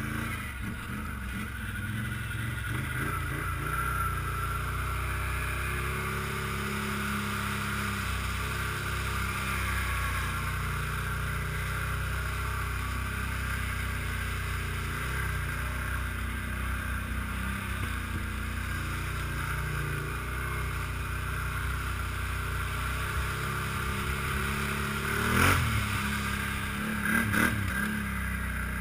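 ATV engine running as the quad is ridden through shallow water and mud, its pitch shifting with the throttle. Two brief louder bursts come near the end.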